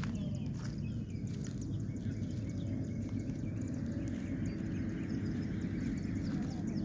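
Steady low rumble of a distant approaching train, with small birds chirping faintly over it.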